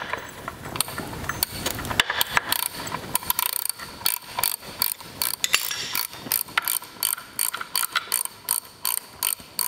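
Hand ratchet wrench clicking in quick strokes as it runs down the bolts of an engine's front timing-gear cover.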